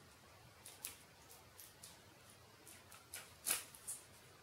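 Faint clicks and crackles of lipstick packaging being handled and opened, a scatter of short sharp ticks with a louder crackle about three and a half seconds in.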